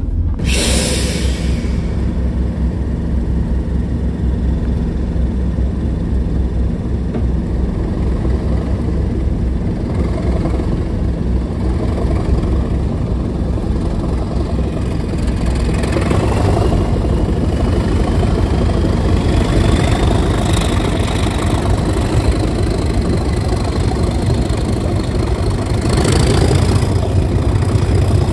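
Class 37 diesel-electric locomotive's English Electric V12 engine working hard under power, with a deep steady rumble. From about halfway a thin turbocharger whistle climbs steadily in pitch, and the engine gets louder twice as it opens up further.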